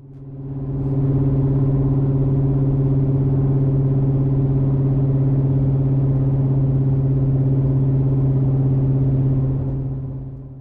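Chevy Camaro engine with a side-exit race exhaust, running at a steady engine speed: one steady, unchanging exhaust note with a strong low hum and several overtones. It fades in over about the first second and fades out near the end.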